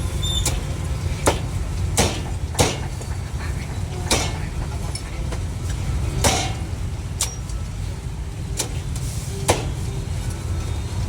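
Sharp single chops of a cleaver on a wooden board, about eight at uneven intervals, over a steady low rumble of street traffic.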